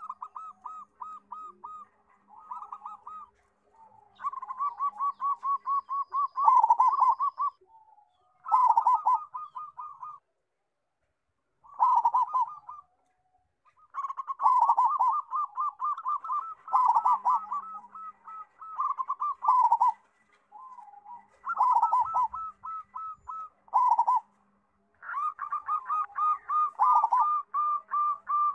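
Local zebra dove (perkutut) cooing: repeated phrases of rapid staccato notes at a steady pitch, each phrase ending in lower, louder notes, with short pauses between phrases.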